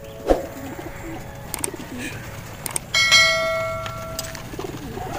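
Racing pigeons cooing softly in a crowded transport crate. About three seconds in, a sharp metallic ring sounds and dies away over about a second; it is the loudest thing heard.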